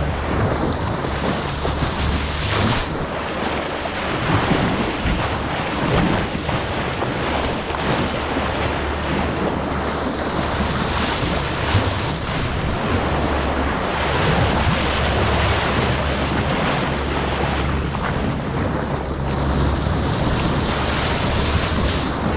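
Water rushing and splashing along a moving boat's hull with wind buffeting the microphone, over a steady low engine hum.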